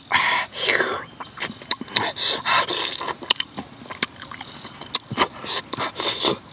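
Close-up eating sounds of a man chewing cooked eel held in his hands: wet chewing, lip-smacking and sucking at the meat, a quick irregular run of sharp smacks and clicks.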